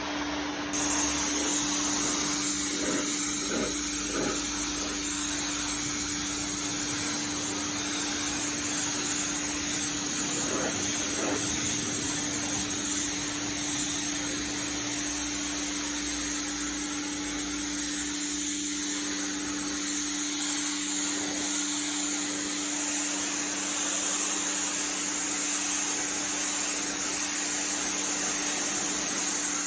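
Pressure washer running steadily: a constant motor and pump hum under the hiss of the high-pressure water spray.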